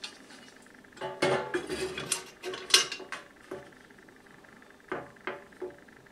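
Grill plate of a Power Smokeless Grill electric tabletop grill being set down into the grill's body: a run of clattering knocks and scrapes, then three short taps near the end as it settles into place.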